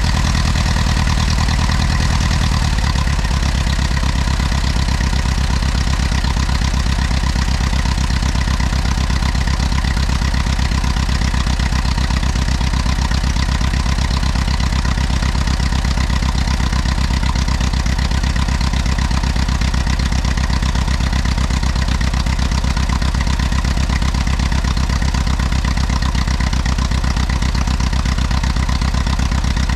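Allis-Chalmers WD tractor's four-cylinder engine running steadily at idle after being jump-started. The engine note shifts slightly about three seconds in, then holds steady.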